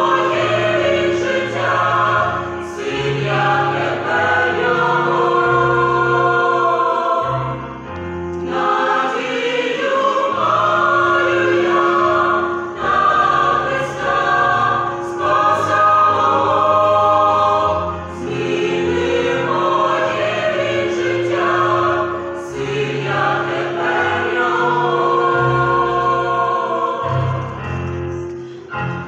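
Mixed choir of men and women singing a hymn in sustained chords, phrase after phrase; the song closes near the end, its last chord dying away.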